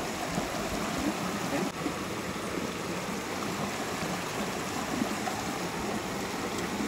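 A river running steadily: a continuous rush of flowing water.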